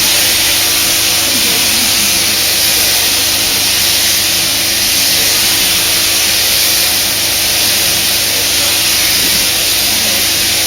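Sheep-shearing handpiece running steadily as it shears the last side of the fleece: an even mechanical hum with a loud hiss.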